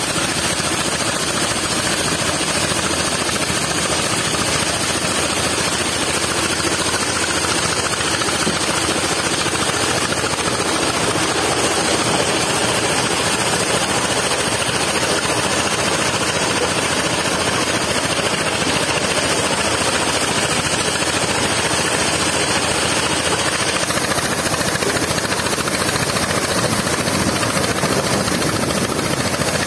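Water from a sand-suction pump's discharge pipe gushing through a grated outlet into a steel dump-truck bed: a steady, loud rush and splash.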